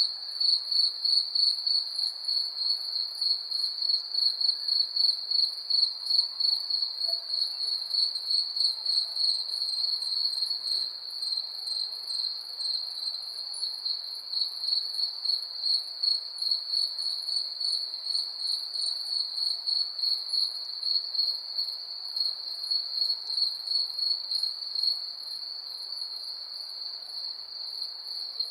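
A night-time insect chorus of crickets chirping: a steady, fast-pulsing high trill at one pitch, with a fainter, still higher pulsing trill above it. The pulses grow less distinct near the end.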